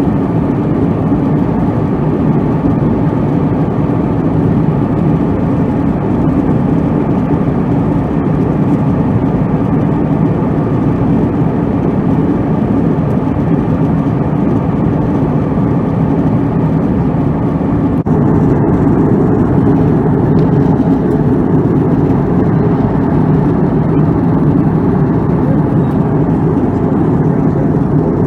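Steady in-flight cabin noise of an Airbus A321-200 heard from a window seat: a constant engine and airflow rumble. The level steps up slightly about two-thirds of the way through.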